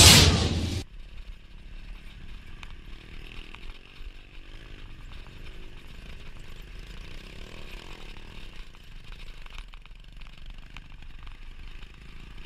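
Loud heavy rock music cuts off suddenly about a second in, leaving the faint, steady buzz of a small engine with light ticking.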